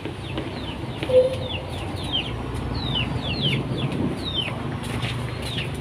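Birds chirping: many quick high chirps, each falling steeply in pitch, several a second, with one short lower call about a second in, over a low steady hum.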